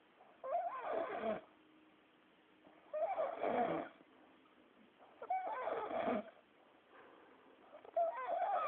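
A man snoring in his sleep: four loud, rasping snores about a second long, one every two and a half seconds or so, with quiet breathing between them.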